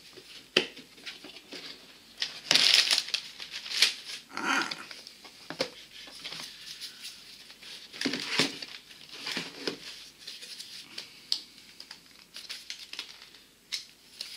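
Handling noise from opening a black hard plastic equipment case and lifting small cardboard boxes out of it: clicks and knocks of the case latches and lid, with crinkling and scraping of cardboard and packing paper. The loudest rustle comes about two and a half seconds in.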